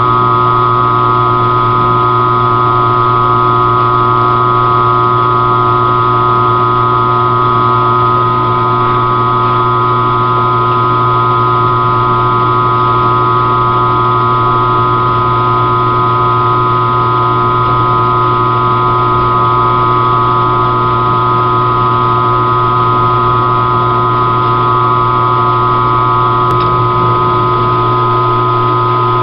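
Mill drill running steadily, a constant motor and spindle-drive hum with a fixed whine, as a 5/16-inch end mill cuts a keyway slot through a shaft collar with the table fed slowly by hand.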